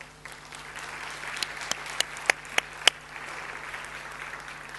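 Audience applauding in a hall, a steady patter of clapping that swells and fades, with a few single louder claps standing out in the middle.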